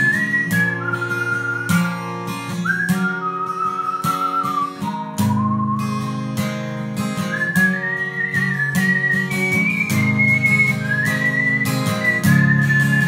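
Instrumental folk music: strummed acoustic guitar chords under a high, whistle-like melody line.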